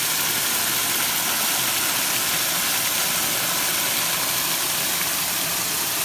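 Many thin jets of water pouring from small holes drilled in a PVC return line into a hydroponic reservoir, splashing into the foaming surface in a steady rush. This is the waterfall method of aerating the nutrient solution.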